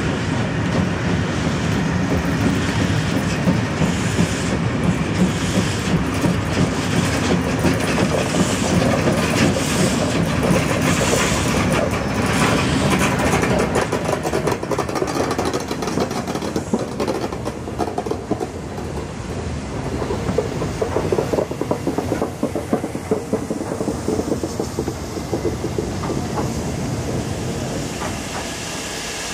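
Steam special train hauled by class 01 and 03 steam locomotives (01 1533 and 03 2155) rolling slowly past, its coaches' wheels clattering over the rail joints. It is loudest in the first half as the coaches and the two locomotives go by, then grows quieter as the train moves away.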